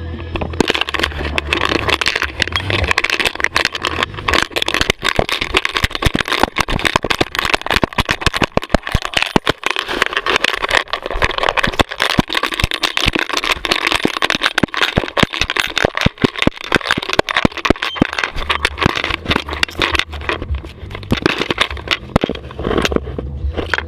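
Dense rattling and knocking from a GoPro and its harness worn by a running dog, jostled with every stride. Low rumble is heard near the start and again near the end.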